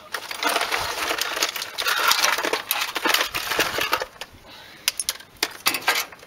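Rummaging for tools: rustling and clattering with metallic clinks, easing after about four seconds into a few separate sharp clicks.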